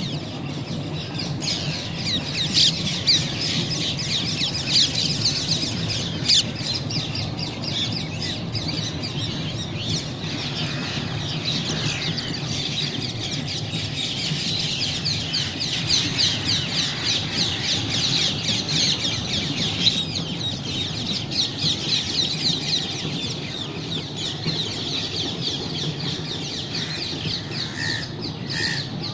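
Many birds chirping and calling at once in a dense, unbroken chatter, over a steady low rumble.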